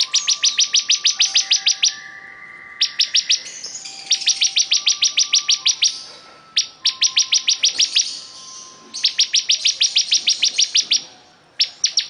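Bar-winged prinia (ciblek kristal) singing in full, persistent song: repeated rapid trains of sharp, high chip notes, about nine or ten a second. Each train lasts up to two seconds, with short pauses between. Fainter, lower steady whistled tones sound in the background.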